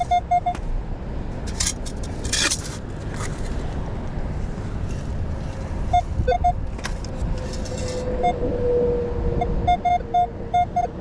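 Minelab Manticore metal detector sounding short, repeated target beeps as the coil is swept over buried metal. The beeps come in runs at the start and again from about six seconds in, growing denser near the end as a strong signal is picked up, over a steady low rumble.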